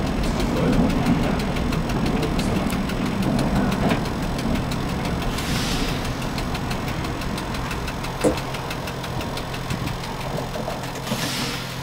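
1960 Standard tram running on street track, heard from the driver's cab: a steady motor hum and rumble of wheels on rails, slowly getting quieter. Two short hisses come about five and eleven seconds in, with a sharp click between them.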